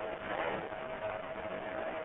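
Steady hiss with a thin, steady hum running under it, the background noise of an audio recording, with a few faint soft swells.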